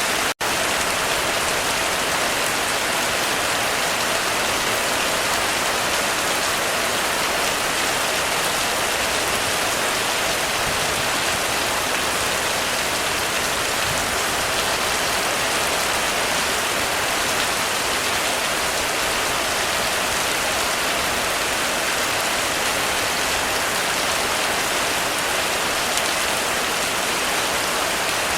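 Heavy rain falling steadily on a roof, an even, unbroken hiss, which drops out for an instant about half a second in.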